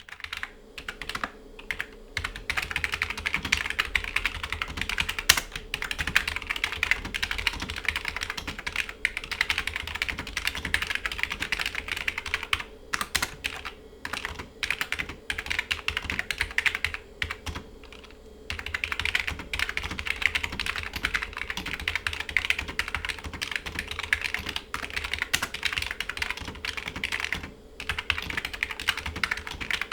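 Typing on a 1994 Compaq Enhanced Keyboard, a rubber-dome PS/2 keyboard: fast, fairly loud key clicks in long runs, with brief pauses about eighteen seconds in and near the end. A faint steady hum sits underneath.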